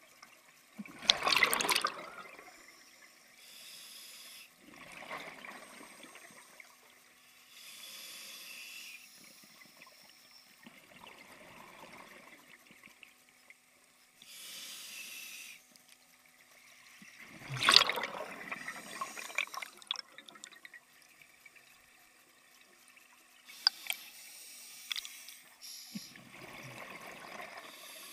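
Scuba diver breathing through a regulator underwater: a hissing inhalation, then a bubbling rush of exhaled air, repeating every few seconds. The loudest bubble bursts come about a second in and about two-thirds of the way through.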